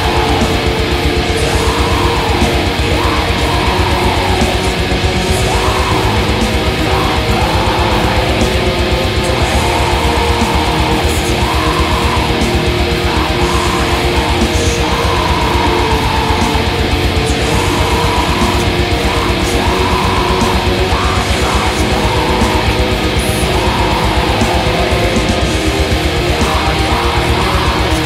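Atmospheric black metal: a dense wall of distorted electric guitars over fast, unbroken drumming, with a wavering melody line riding on top.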